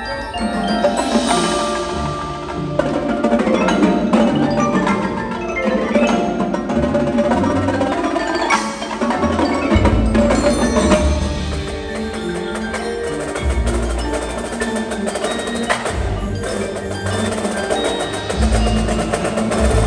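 Indoor percussion ensemble playing: a front ensemble of marimbas and other mallet keyboards rings out chords and runs, with a marching drum line of snares and tenors striking along with them. Deep low bass notes come in about ten seconds in.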